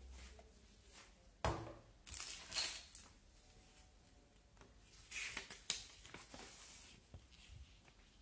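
A plastic security camera is set down on a table with a sharp knock about a second and a half in, followed by paper rustling as a small user-guide booklet is picked up and its pages opened, with a sharp click in the middle.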